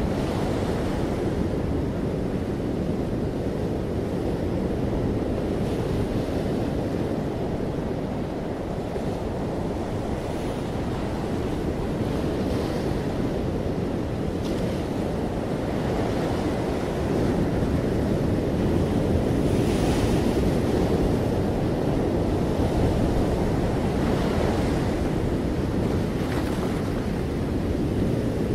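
Ocean surf breaking and washing up a sandy beach around rocks: a continuous rush of waves that swells louder for a few seconds a little past halfway.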